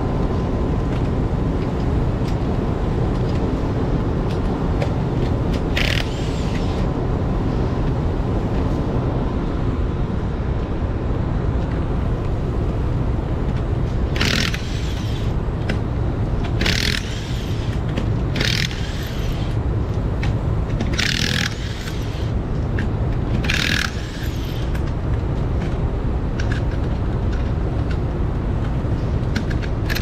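Vehicle running with a steady low rumble of engine and road noise, broken by about six short, sharp hisses spread through the second half.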